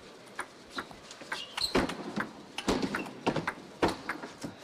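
Table tennis ball clicking back and forth off the bats and the table in a fast rally, about a dozen sharp, irregular hits. Heavier thuds from the players' feet on the wooden floor are mixed in.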